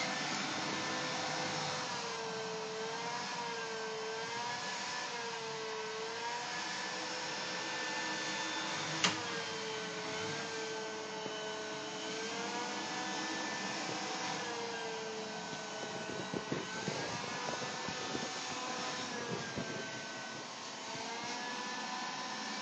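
iRobot Scooba 230 floor-scrubbing robot running, a steady motor whir with a whine that wavers up and down in pitch again and again. A sharp click about nine seconds in and a few light knocks near the end.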